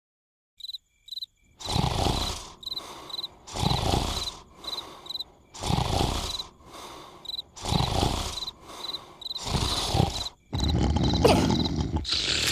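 A person snoring loudly, one rasping snore about every two seconds with a softer breath between, over crickets chirping. From about ten and a half seconds a louder continuous noise takes over.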